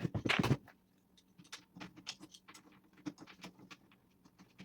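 A new heavy-duty caster knocking against the tool box base, then a run of scattered light clicks and scrapes as it is shifted about to line up its mounting holes.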